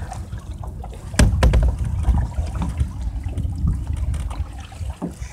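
Canoe paddles stroking through lake water, with splashing and trickling water and a strong surge of water noise about a second in.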